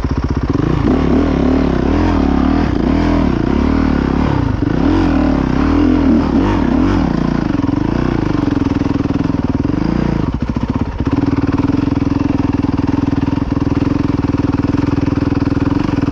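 Enduro dirt bike engine under the rider, revs rising and falling for about ten seconds as it is ridden over rough trail, then holding a steady note after a brief dip.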